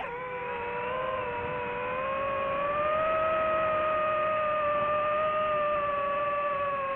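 DJI FPV drone's motors and propellers whining in flight, a steady pitched hum that rises slowly around the middle and eases back down with the throttle.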